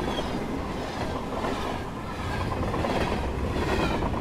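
A train running on rails: a steady rumble with the clatter of its wheels.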